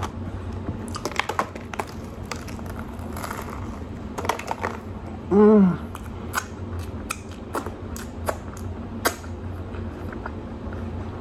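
Close-up chewing and wet lip-smacking of a man eating a bite of burger, many small clicks and smacks. About five seconds in comes one short, loud hummed 'mmm' of enjoyment that rises and falls in pitch.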